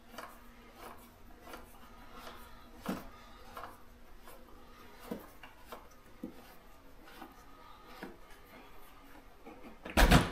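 Hands working the fuel pump retaining nut loose, with scattered small clicks and scrapes, then a sharp pop near the end as the spring-loaded fuel pump assembly springs up.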